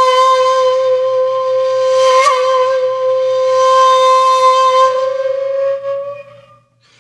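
Intro music: one long held wind-instrument note, steady in pitch with a brief wobble about two seconds in and a slight rise near the end before it fades out.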